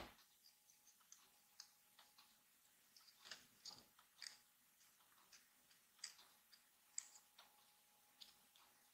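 Faint, irregular clicks and crinkles of fingers handling and pressing small cut-out paper pieces, opening on a sharper crackle and with a cluster of clicks around three to four seconds in.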